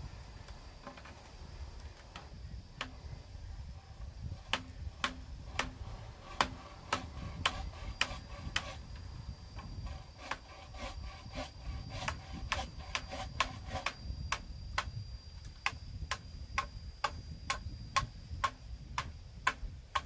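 Tool strikes knocking on a split-bamboo floor: sharp, irregular knocks, at times about two a second, some with a short ringing tone.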